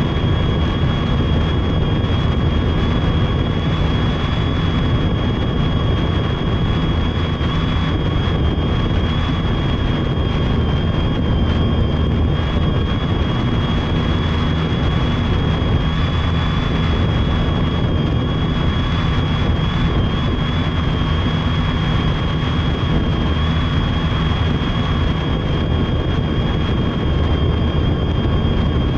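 Multirotor drone's brushless electric motors and propellers running steadily in flight, heard from a camera on the drone's own frame: a loud, steady rushing noise of prop wash over a high, steady motor whine.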